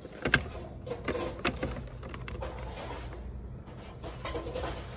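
Stiff cardboard signs on a hanging peg being flipped through by hand, clacking sharply a few times in the first couple of seconds and rustling against each other, over a steady low background hum.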